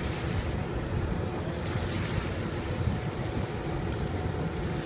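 Wind rumbling on the microphone, with small waves lapping at the riverbank.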